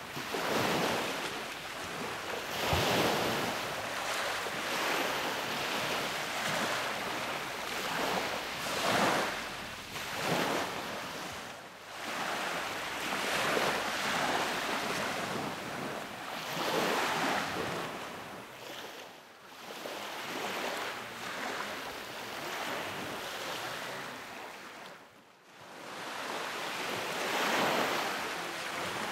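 Sea waves breaking and washing up on a sandy beach, swelling and easing every few seconds with a couple of short lulls.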